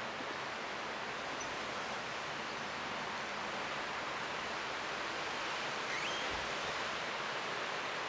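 Leaves of a tree rustling steadily in the wind.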